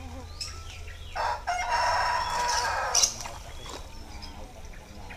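A rooster crowing once: one long call lasting about two seconds, starting about a second in.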